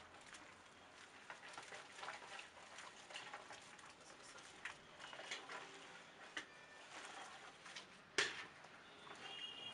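Long wooden paddle stirring rice in a large aluminium pot: soft, irregular scrapes and clicks of wood against the metal, with one sharp knock about eight seconds in.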